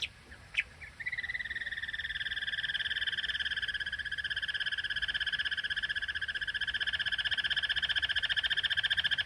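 An animal's long, steady, fast-pulsed trill, starting about a second in and held for about nine seconds at an even high pitch.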